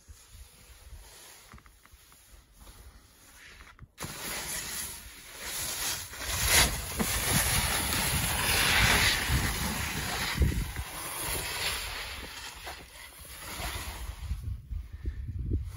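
Skis sliding and scraping over snow through turns, with wind rushing over the microphone. It is fairly quiet at first, then gets abruptly louder about four seconds in.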